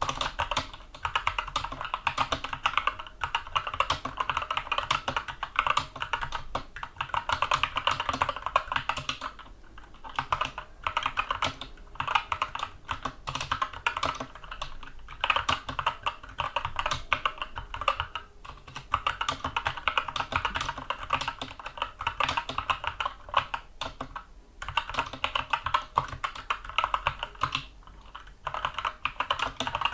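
Continuous fast typing on a Skyloong compact mechanical keyboard with tactile Gateron Brown switches: a dense run of keystroke clicks and clacks. It breaks off in several brief pauses.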